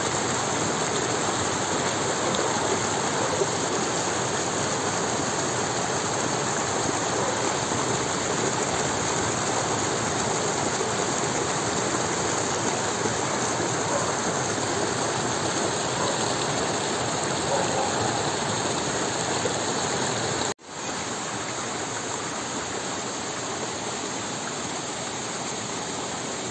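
Shallow stream water rushing steadily over stones. It drops out for an instant about two-thirds of the way through, then carries on slightly quieter.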